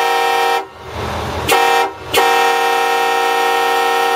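Homemade PVC train horn, its trumpets tuned like a Nathan K5HL five-chime horn and blown by an air solenoid valve, sounding three blasts. A blast cuts off about half a second in, a short blast follows about a second later, then a long blast of about two seconds.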